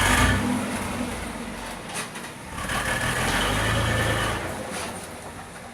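GM Vortec 4.3 V6 engine revved sharply once, settling back, then revved again and held for about two seconds before dropping back toward idle.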